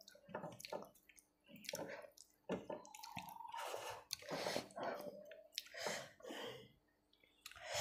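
Fingers wiping the last food off a stainless steel plate, with wet mouth sounds of licking the fingers clean: a run of short, irregular, wet sounds.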